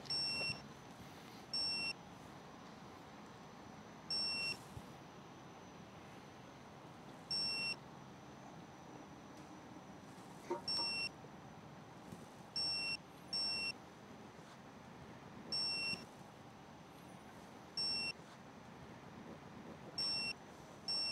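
Digital torque-angle wrench beeping: about ten short, high beeps, spaced one to three seconds apart, each one signalling that a main bearing cap bolt has been turned to its set 70-degree angle. A light click comes about ten and a half seconds in.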